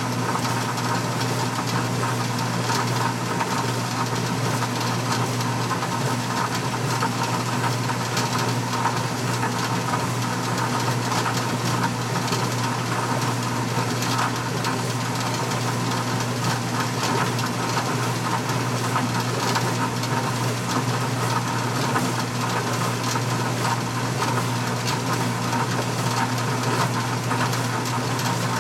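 Washing machine running: a steady motor hum with an even whirring noise over it.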